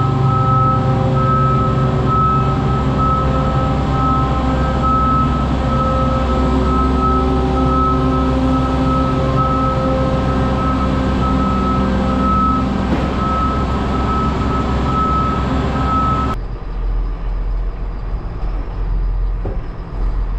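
Heavy vehicle engine running steadily, with an electronic warning beep repeating a little faster than once a second. About three-quarters of the way in the sound cuts to a quieter, duller engine hum.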